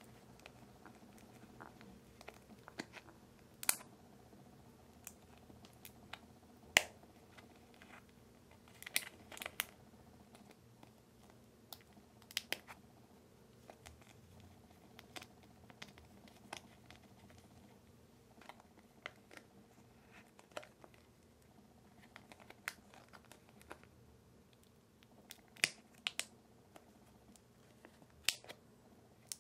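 Irregular sharp clicks and light taps of small plastic pieces being handled, from a Popin Cookin DIY candy kit's tray and tools, over a faint steady hum.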